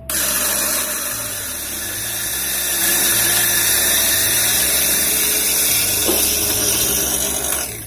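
Nankai 600N electric coffee grinder grinding beans at its finest setting: the motor starts suddenly, runs with a steady whirring grind that grows louder a couple of seconds in, and cuts off shortly before the end.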